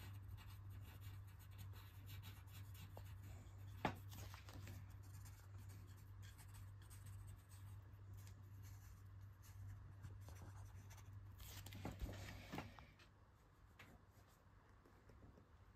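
Pencil sketching on paper: faint, irregular scratching strokes over a low steady hum, with a sharp tap about four seconds in. The hum stops a little after twelve seconds and it goes quieter.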